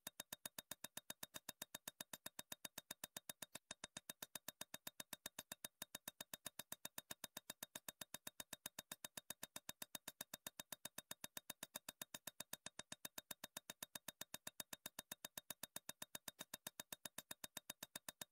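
Rapid, even ticking, about five short clicks a second, from a number-shuffling sound effect as the score digits cycle.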